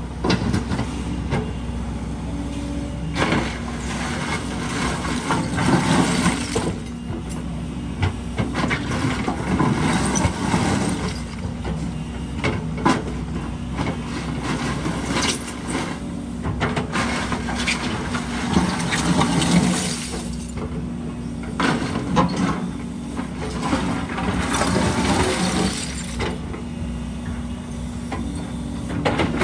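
A heavy diesel excavator engine running steadily, with repeated spells of several seconds of scraping and clattering as broken concrete rubble is dug and moved.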